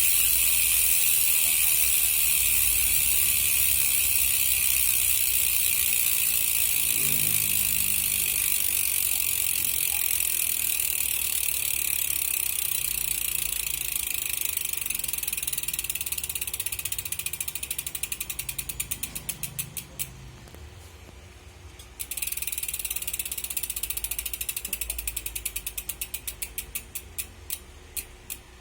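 Speedone Soldier six-pawl rear hub freewheeling. The pawls click so fast they blend into a high buzz, which slows into separate clicks as the wheel spins down and stops. About three-quarters in, the wheel is spun again and the buzz winds down once more into slowing clicks.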